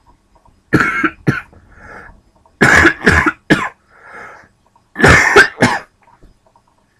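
A man with pneumonia coughing hard into his elbow: three bouts of two or three harsh coughs each, with breaths drawn in between.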